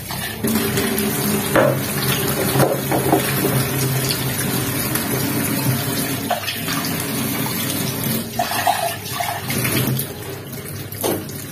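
Water running steadily from a tap into a sink, with a few short knocks.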